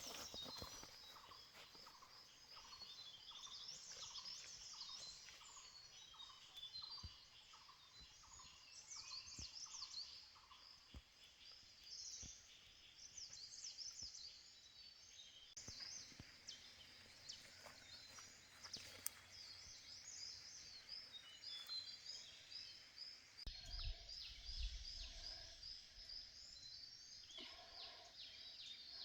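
Faint birdsong: many birds chirping and trilling, with a lower call repeated about once a second through the first ten seconds and again near the end.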